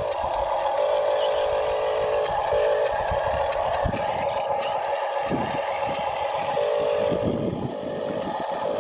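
Small electric motors of radio-controlled model vehicles whining, with a lower steady hum that starts and stops several times, and scattered low knocks.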